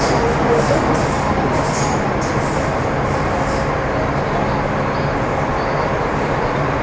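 Running noise inside a Metro Cammell M-Train metro car with a GEC GTO chopper: the steady rumble of wheels on rail, with a few faint steady tones from the traction equipment.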